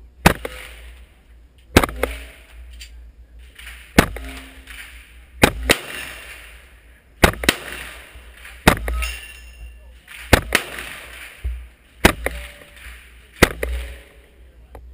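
KRISS Vector carbine in .45 ACP fired in slow single shots, about nine in all, one every one and a half to two seconds, each sharp report followed by a short echo.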